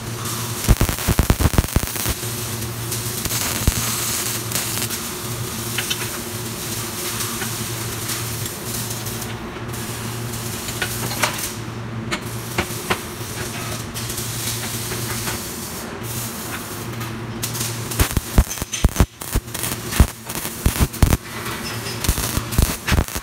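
CO2 (MIG) welding arc on a steel seat-bracket frame, crackling and spitting in dense irregular bursts in the last few seconds, with a short burst of crackle about a second in. Between them, a steady hiss and low hum carry on while the welder sets parts in the jig.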